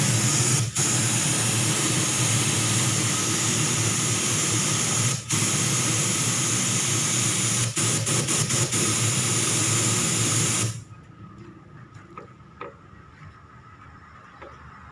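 Compressed air hissing loudly from an air hose held at the top of the engine. It breaks off briefly about a second in and near five seconds, stutters with several quick on-off bursts around eight seconds, then shuts off sharply at about eleven seconds.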